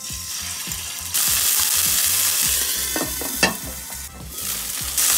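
Chicken thigh pieces sizzling as they fry in hot oil in a nonstick frying pan. The sizzle grows louder about a second in, and a sharp click is heard a little past the middle.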